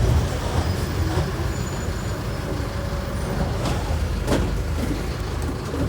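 Mercedes-Benz OM-904LA four-cylinder turbodiesel in an OF-1418 bus, running steadily at low revs with a deep, even rumble.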